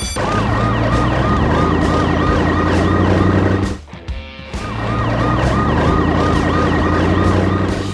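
Emergency-vehicle siren in a fast, repeating yelp over a steady low engine-like hum. It cuts out briefly about four seconds in, then comes back.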